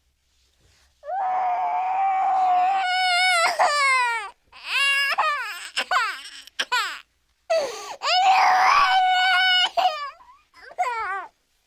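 Crying sound effect: a high voice wails in long held cries, each breaking into falling sobs, with short pauses between.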